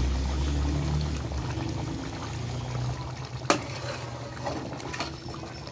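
Creamy korma gravy bubbling at a boil in an aluminium karahi, over a low steady hum. A metal spoon clicks against the pan a few times, sharpest about three and a half seconds in.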